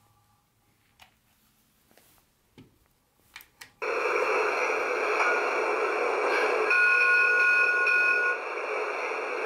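A few light plastic clicks, then, about four seconds in, the Lionel battery-powered toy locomotive's built-in speaker suddenly starts playing a loud, steady electronic sound effect, triggered from its remote. A few steady tones join it for a second or two near the end.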